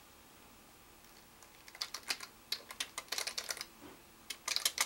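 Typing on a computer keyboard: runs of quick key clicks starting about a second and a half in, a short pause just before the four-second mark, then another quick run.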